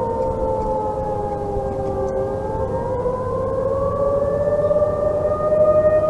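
Several outdoor tornado warning sirens, A.S.C. T-128 and Federal electromechanical models, sounding together as overlapping tones at different pitches. Their pitches glide slowly: the highest falls for about two seconds and then rises again.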